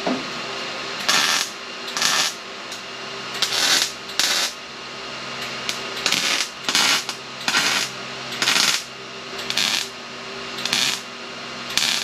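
Electric welder stitch-welding steel at the front radiator support of a 1957 Chevy: about eleven short bursts of arc noise, each under half a second and roughly one a second, as a string of tack welds is laid down.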